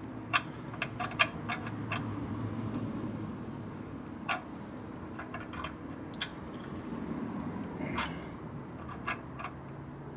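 Irregular light metallic clicks and ticks from the throttle linkage and lever on a Linkert carburetor being worked by hand, over a faint steady low hum.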